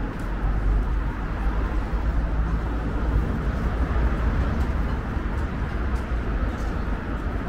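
City street ambience: a steady low rumble of traffic under a constant outdoor hum.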